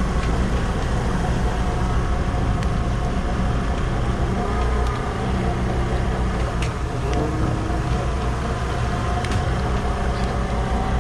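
Fishing boat's engine running with a steady low hum, with a few light clicks now and then.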